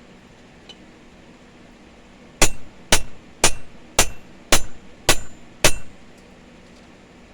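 Blacksmith's hand hammer striking steel seven times, about two blows a second, each blow ringing briefly. These are blows on a punch driving the eye through the chipping hammer head.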